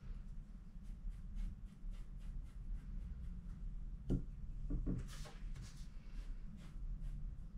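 Faint, short brush strokes on wet watercolour paper over a steady low hum. A soft knock comes about four seconds in, and a brief louder rustle about a second later.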